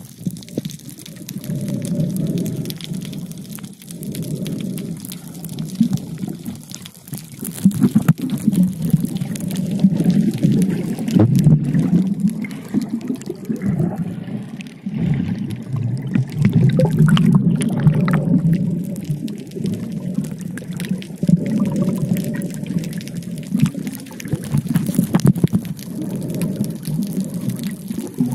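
Muffled underwater water noise picked up by a camera held below the surface, swelling and fading every few seconds as the swimmer moves, with scattered small clicks and crackles.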